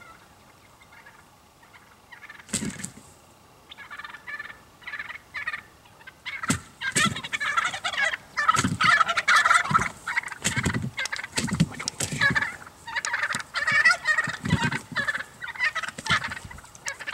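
Wild turkey toms gobbling over and over at close range: a few softer calls at first, then loud, rattling gobbles one after another from about six seconds in.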